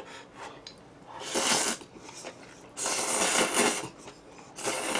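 A person slurping black-bean instant noodles (Jjapaghetti) from close to the mic, three airy slurps each lasting under a second, the middle one the longest.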